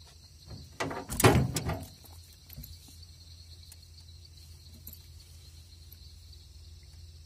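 Steady chirring of night insects, with a loud burst of clattering and rustling about a second in that lasts about a second.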